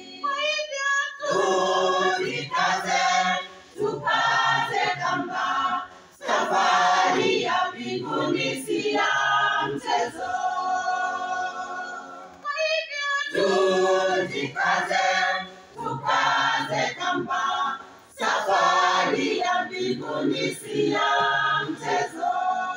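Mixed church choir of men's and women's voices singing a Swahili hymn, line after line with short breaks between phrases.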